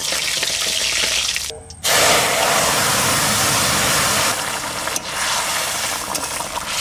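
Cumin seeds sizzling in hot mustard oil in a wok. About two seconds in, after a brief break, a sudden, much louder sizzling hiss starts as the hot tempering meets the kochur loti (taro stolon) curry, and it runs on steadily.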